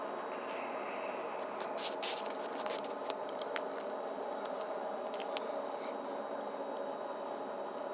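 Steady hum, like a vehicle heard from inside a car. A few light clicks and scrapes come between about two and five and a half seconds in.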